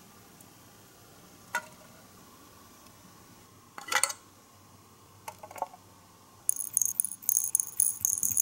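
Small hard miniature replica pieces being handled between fingertips: a few separate clicks, then near the end a quick run of bright, high-pitched clinks and rattles like tiny pieces knocking together.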